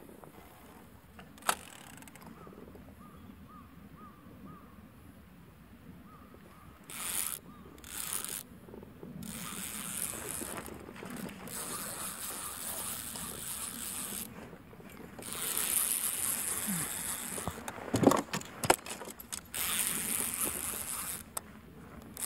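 Diamond Reel Micro II 301 inner-spool spinning reel being wound, its gears whirring and clicking in spells that stop and start, with a few sharp knocks about three-quarters of the way through.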